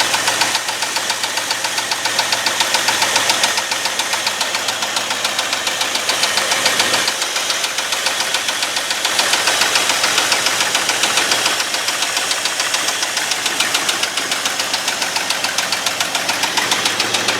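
1989 Ford F250's 5.8-litre Windsor V8 idling with a loud, steady, rhythmic knock, which the owner judges doesn't sound healthy at all.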